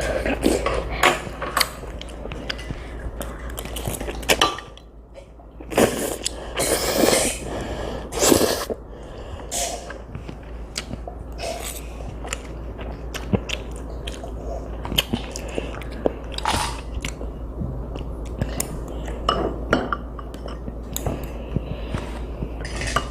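Close-up eating sounds of a child chewing chewy jjolmyeon noodles, with scattered small clicks and clinks of utensils against the dish.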